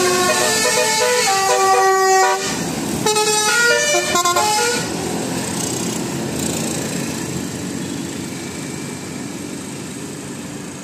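Bus telolet horn, a set of air horns playing a melodic tune of stepped notes: one phrase of about two seconds, a short break, then a second phrase. About five seconds in it gives way to a steady rush of vehicle noise that slowly fades.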